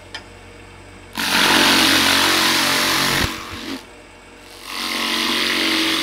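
Skew chisel cutting packing foam spinning on a wood lathe: a loud, rough cutting noise in two passes, starting about a second in and again from about four and a half seconds, over the lathe's steady hum.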